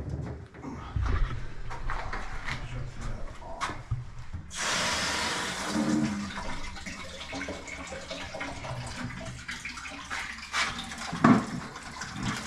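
A few clunks from handling the plumbing, then about four and a half seconds in water suddenly starts gushing from the house water line into a plastic bucket and keeps running steadily: the line is being drained after the water to the house has been shut off. A single knock near the end.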